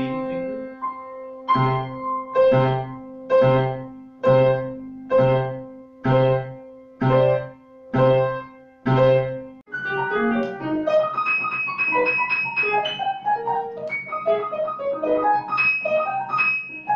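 Grand piano played: one chord struck over and over, about twice a second, for the first ten seconds. After that comes a quicker passage of many different notes.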